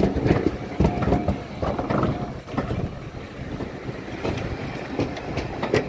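Railway passenger coaches rolling slowly past behind a steam locomotive, wheels knocking unevenly over the rail joints, with wind on the microphone.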